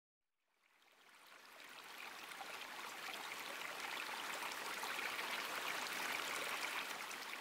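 A steady rushing hiss, like running water, that fades in over the first couple of seconds, builds, and starts to fade near the end.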